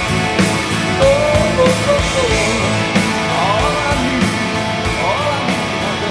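Rock music: a full band with guitars and a steady drum beat, with a melodic line bending up and down in pitch over it.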